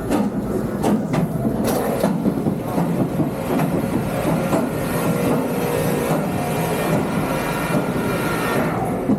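A train running along its track: a steady rumble with a few sharp clicks in the first two seconds.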